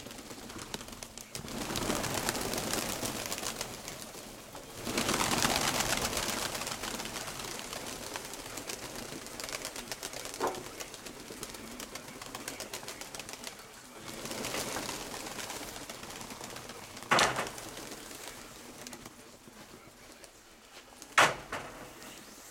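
Domestic pigeons cooing amid swells of broad rushing noise, with three sharp knocks spread through it, the last near the end.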